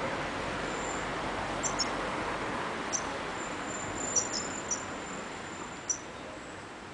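Caged goldfinch–canary mule giving a few short, sharp, very high-pitched chirps and a thin high held note, over a steady background hiss.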